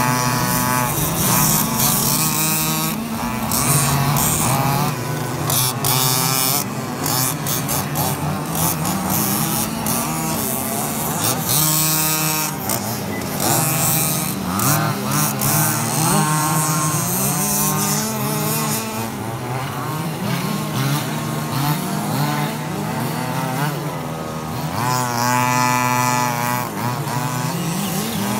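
Several 1/5-scale petrol RC off-road cars racing together, their small two-stroke engines buzzing and revving up and down as they accelerate and slow for the corners, the overlapping engine notes rising and falling throughout.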